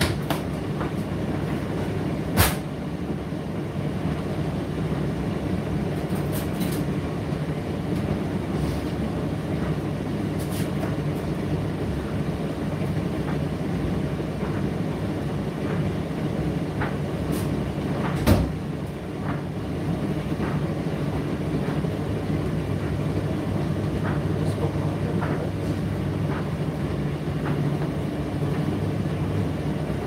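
Indesit IDC8T3 condenser tumble dryer running: a steady low rumble from the turning drum, with a sharp knock about two seconds in, another about halfway through, and a few lighter ticks between.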